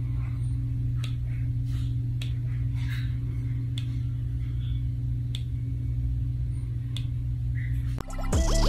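A steady low hum with faint, irregular clicks over it, cutting off suddenly near the end.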